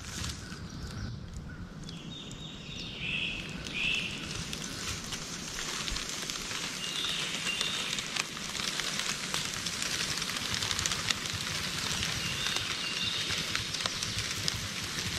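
Dry leaves and pine straw crackling and rustling as a rattlesnake crawls over them close to the microphone: a steady fine crackle with scattered sharper clicks.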